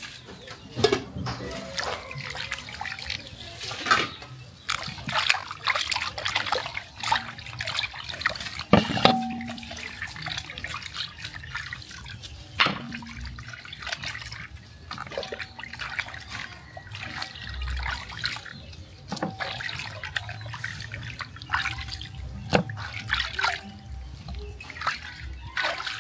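Hands sloshing and splashing in a pot of water while washing raw goat meat and fish, with irregular splashes, drips and knocks as pieces are lifted out into a plastic bowl.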